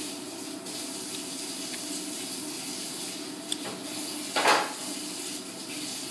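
Steady rushing background noise with a low hum, and one short loud noisy sound about four and a half seconds in.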